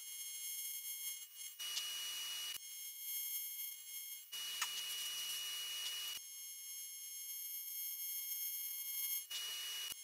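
AC TIG welding arc on aluminium plate, struck three times in short stretches of buzzing (about a second, about two seconds, and under a second near the end) to fill drilled holes. A steady high-pitched whine runs underneath.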